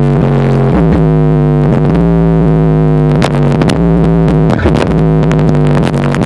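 Loud bass-heavy electronic music with sustained synth notes, played through a Kole Audio KMX subwoofer.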